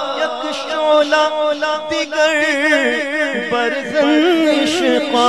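A man singing a naat solo into a microphone, drawing out a long, wavering melismatic run without clear words.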